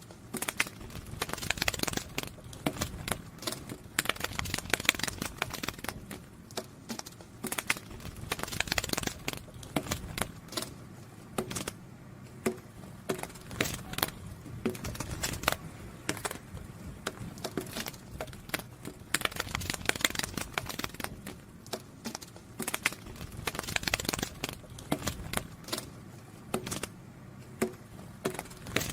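A butterfly wing-flutter sound effect: dense flurries of light, dry clicks and crackles that swell and ease every few seconds.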